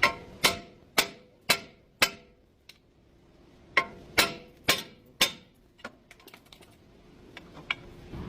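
Sharp metallic knocks, each with a short ring, about two a second: a run of five, a pause of about a second and a half, then four more, tailing off into faint ticks near the end.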